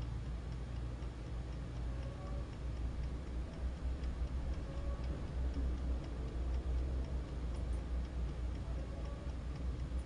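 Westclox alarm clock ticking steadily as it runs down toward its alarm, over a steady low hum.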